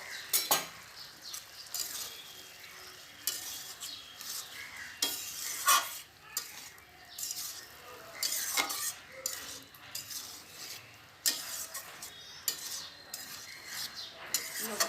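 A spatula stirring fried soya chunks into a bubbling spice paste in a kadai, with sizzling and a few sharp knocks of the spatula against the pan.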